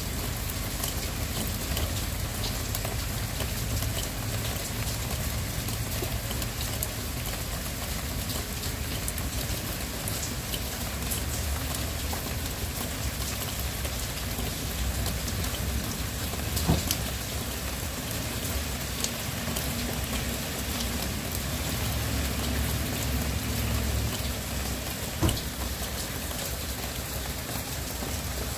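Steady rain falling, an even hiss full of individual drops ticking, with a low rumble underneath. Two sharper, louder drop hits stand out in the second half.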